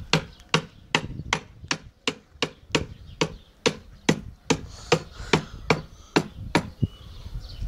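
Sharp, evenly spaced knocking strikes, about two and a half a second, like hammering or tapping, stopping about a second before the end.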